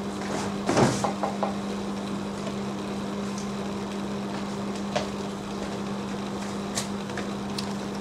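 A steady low electrical hum from the workbench, with a short knock about a second in, a few small clicks right after it, and single faint clicks later, as things are handled on the bench.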